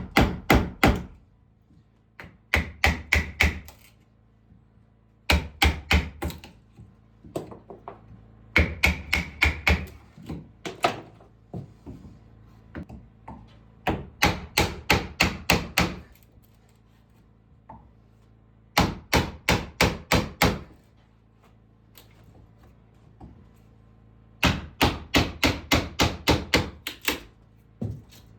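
Hammer striking wood in quick runs of blows, about five a second, with pauses of a few seconds between runs.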